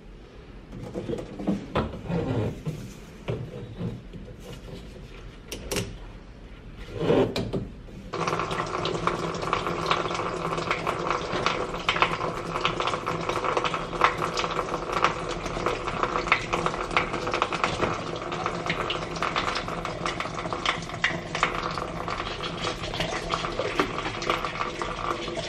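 Scattered knocks of a plastic container being handled at a sink, then, about eight seconds in, a steady rush of tap water filling the container, with small clicks and knocks through it.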